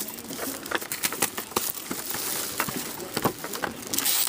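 A sealed hockey card box being unwrapped and opened by hand: plastic wrap crinkling and tearing, with clicks and taps of cardboard being handled.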